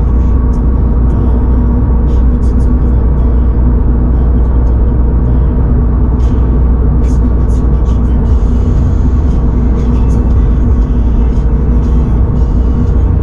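2022 Subaru BRZ's 2.4-litre flat-four droning at a steady engine speed under road and tyre rumble, heard inside the cabin while cruising, with a few faint ticks.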